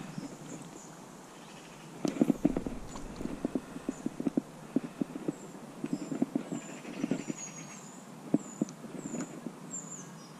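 Irregular light knocks and taps, with a bird chirping in short, high, downward notes repeated through the second half.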